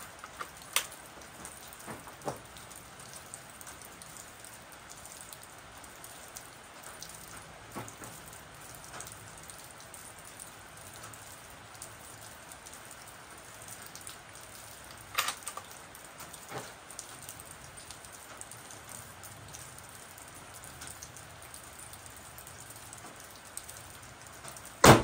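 Single shot from a 6.5 Creedmoor Seekins Havak PH2 bolt-action rifle with a muzzle brake, fired near the end: one sharp, loud report followed by a short echo. Before the shot there is only a steady hiss with a few light clicks.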